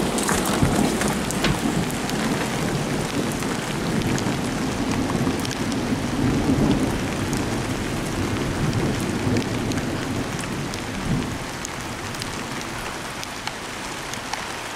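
Very heavy rain pouring steadily onto paving and a wooden deck, with many individual drops ticking close by. It eases a little over the last few seconds.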